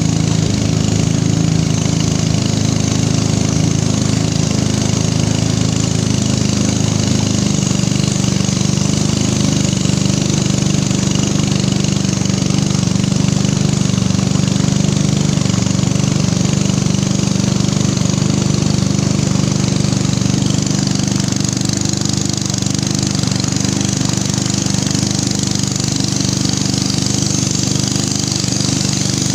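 Small boat engine running steadily at speed, driving a narrow wooden longboat along a river.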